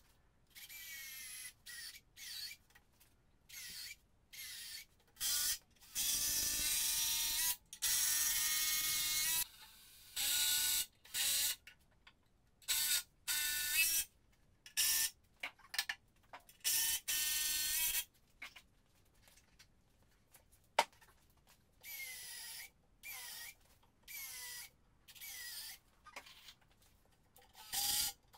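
Handheld power drill running in many short bursts, its motor whine shifting in pitch, each burst starting and stopping abruptly.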